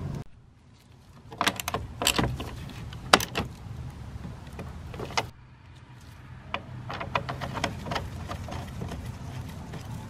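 Scattered metal clinks and taps of a wrench working the battery cable's terminal nuts. The sharpest clack comes about three seconds in, and a low steady hum runs beneath.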